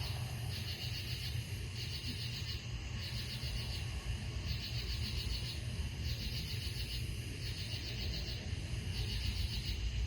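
A chorus of night-singing insects, which the speaker takes for cicadas: a high, rapidly pulsing buzz in phrases of about half a second, repeating roughly once a second. A steady low rumble runs underneath.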